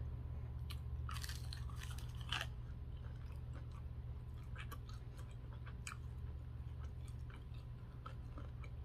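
Close-up eating sounds: biting and chewing crispy fried chicken wings, with crunching, strongest about one to two seconds in, then scattered smaller crunches and mouth clicks over a low steady hum.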